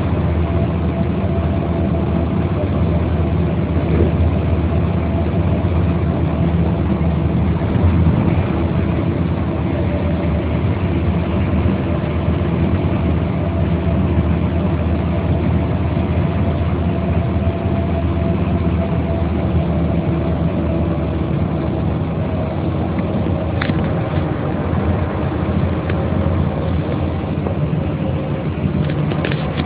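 Mercedes-Benz O 405 bus engine running steadily at a constant, unchanging pitch, with a couple of faint clicks near the end.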